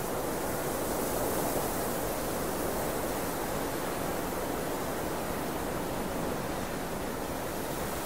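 Wind noise: a steady, even rushing hiss with no gusts or breaks, swelling slightly about a second in.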